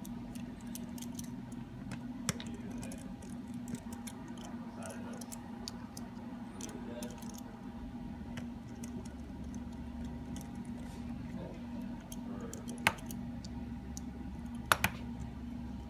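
Small scattered clicks and taps of a precision screwdriver and tiny phone screws being removed and set down, with two sharper clicks near the end, over a steady electrical hum.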